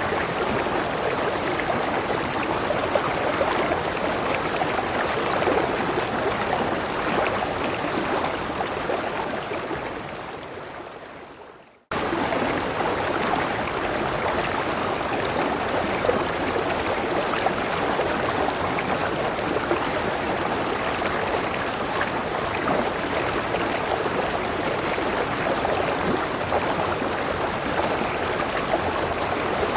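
River water running steadily. It fades away over a few seconds to silence about twelve seconds in, then cuts straight back in at full level: the seam where the recording loops.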